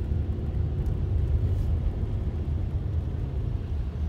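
Wind blowing across the microphone: a steady low rumble.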